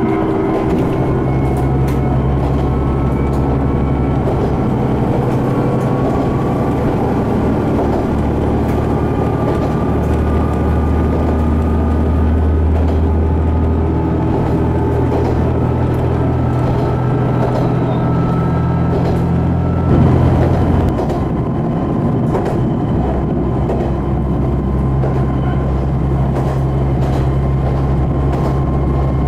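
Kanto Railway Joso Line diesel railcar running along the line, heard from inside the car: a steady low engine drone with wheel and track noise. About twenty seconds in it briefly gets louder and the engine note changes.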